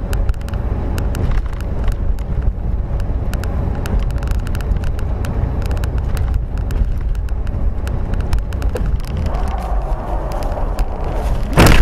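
Car driving, heard through a dashcam: a steady low road rumble with frequent small clicks and rattles, and one loud thump near the end.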